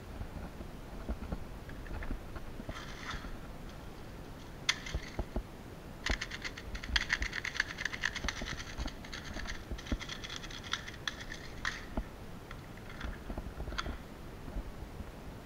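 Rapid plastic clicking and rattling as BBs are loaded into the magazine of a Cyma CM030 Glock 18 airsoft pistol. The clicking is dense from about six to twelve seconds in, with scattered lighter clicks and handling noise before and after.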